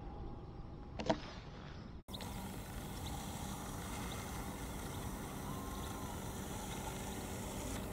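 Steady outdoor background noise with a faint, even low hum like a distant engine. One short sharp sound comes about a second in.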